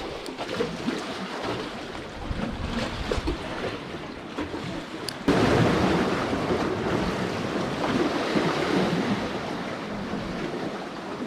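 Outdoor seaside noise: wind buffeting the microphone along with waves washing at the shore. It becomes suddenly louder about five seconds in.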